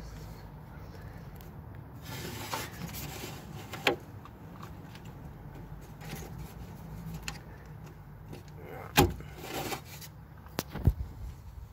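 Hands rubbing and scraping over plastic parts on the engine's intake, with a few sharp clicks, the loudest about nine seconds in.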